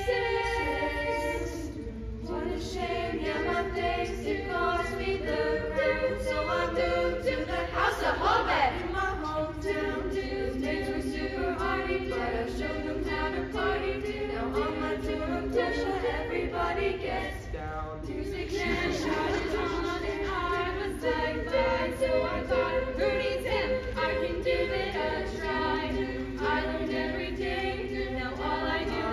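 A youth vocal ensemble of about eleven young, mostly female voices singing a cappella in harmony, with no instruments.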